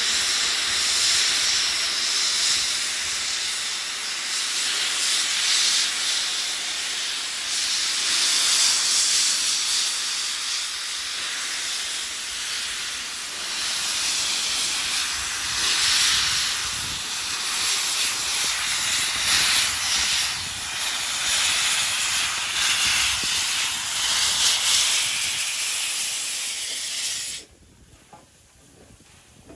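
AD60-class Beyer-Garratt steam locomotive 6029 pulling away slowly, steam hissing loudly from its open cylinder drain cocks, swelling and easing every few seconds. The hiss cuts off suddenly near the end.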